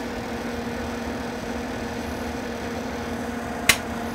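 Heathkit SB-220 linear amplifier running with its high voltage fully up through a variac: a steady electrical hum over an even rush of noise, the amp working with no arcing. One sharp click sounds near the end.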